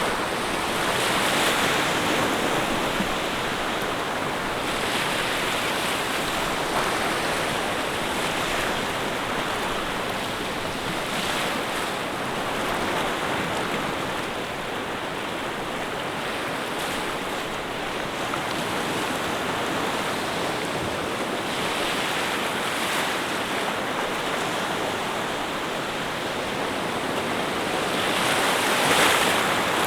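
Sea waves washing onto a shore, a continuous surf with a swell of breaking water every few seconds, the biggest one near the end.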